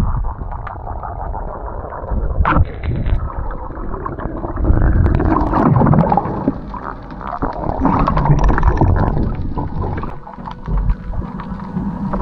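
Muffled underwater rushing and gurgling of water moving past as a diver swims, swelling and fading in long surges.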